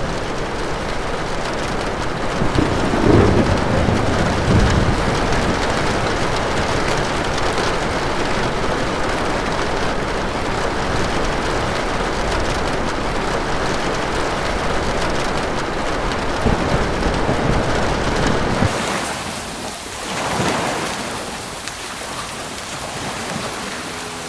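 Thunderstorm soundscape: steady heavy rain with low rolls of thunder a few seconds in. About three-quarters through, the low rumble cuts off suddenly, leaving lighter rain.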